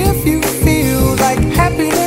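Pop song playing: a sung vocal melody over a steady beat and bass line.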